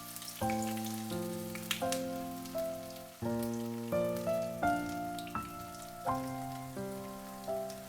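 Gentle piano background music, notes struck and left to decay, over a fine crackling hiss like hot oil sizzling in a frying pan.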